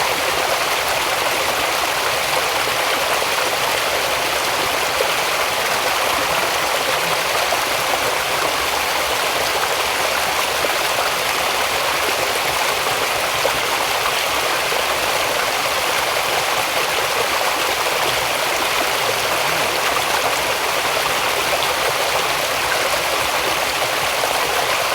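Flowing water of a small stream, a steady even rush with no break.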